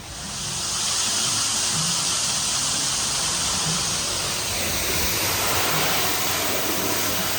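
Steady hiss of rushing water, building up over the first second and then holding level.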